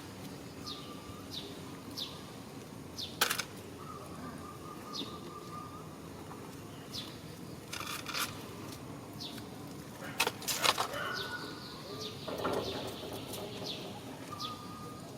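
Outdoor ambience with a bird giving short high falling chirps about once a second. A few sharp rustling knocks come around three seconds in, again near eight seconds, and a cluster near ten to eleven seconds.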